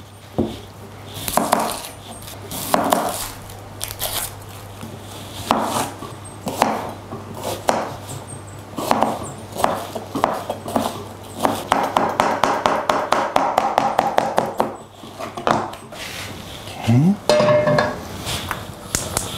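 Knife cutting an onion on a cutting board: scattered knocks and clatter, then quick, even chopping strokes near the end.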